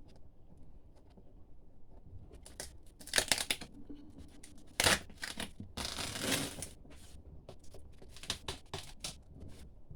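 Duct tape being peeled and ripped off a cardboard box in short crackling pulls, with a longer rip a little past the middle.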